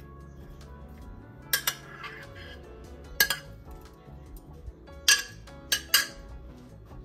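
Metal spoon scraping and knocking against a white ceramic serving dish, with about six sharp clinks as the filling is scraped out. Soft background music plays underneath.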